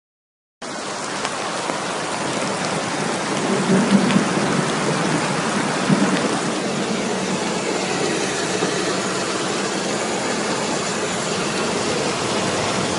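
Heavy rain pouring down, a steady hiss that starts about half a second in, after a moment of silence.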